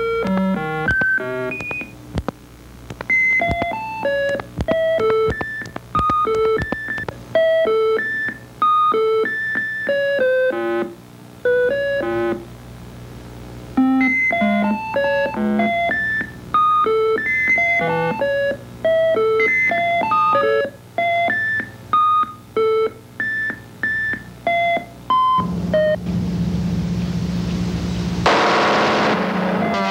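Synthesizer score: a melody of short, separate electronic notes that jump around in pitch, with brief pauses between phrases. About 26 seconds in, a wash of noise comes in and swells brightly near the end.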